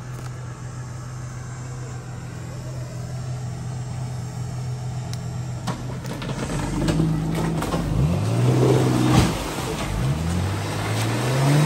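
A 4x4's engine running steadily, then revved in several rising and falling surges from about halfway through. The loudest surges come around two-thirds of the way in and near the end.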